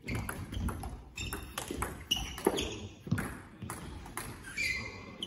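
Table tennis rally: the ball clicks irregularly off the paddles and bounces on the table, with a few short squeaks of shoes on the hall floor.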